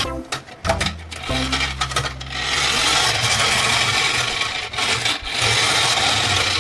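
Toy car's plastic wheels rolling along a wooden board, a steady rasping rub, after a few sharp clicks and knocks in the first second or so.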